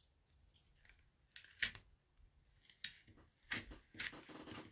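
Adhesive Chalk Couture silkscreen transfer being peeled carefully off paper: quiet crackly peeling and rustling in short strokes, starting about a second and a half in and coming thicker near the end.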